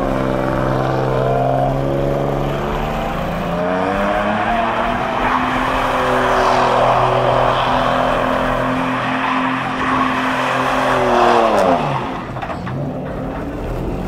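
Pickup truck doing a burnout. The engine revs up and holds high while the tyres spin and squeal on the pavement, then the revs drop off sharply about twelve seconds in.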